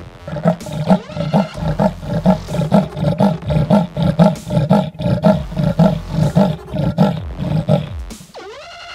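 A leopard growling in a fast, even series of pulses, about two or three a second. The series stops shortly before the end.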